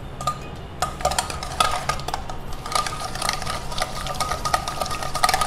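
A wire whisk beating hung curd into an oil-based marinade in a stainless steel bowl: rapid clicking and scraping strokes of the wires against the steel, starting about a second in, with a faint metallic ring.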